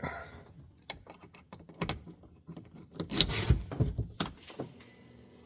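Clicks, knocks and rattles of a key being handled and a side-by-side's door and cab being worked, just before the start. A faint steady hum comes in near the end.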